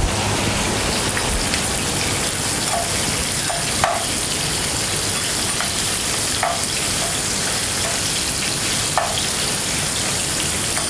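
Pieces of pargo fish, mushrooms, clams and prawn tails sizzling in hot oil in a frying pan, with a metal spatula stirring them and knocking against the pan a few times.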